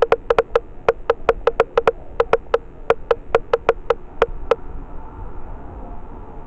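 A fast, uneven series of sharp taps or clicks, each with a short ringing note, stopping about four and a half seconds in.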